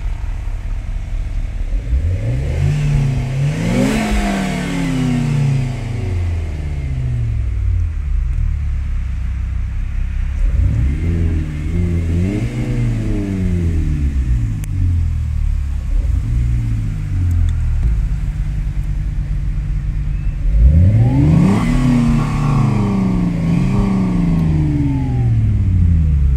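Renault Clio RS's 1.6-litre turbocharged four-cylinder engine idling and being revved through its exhaust several times, each rev rising and falling smoothly back to idle. The longest and loudest run of revs comes near the end.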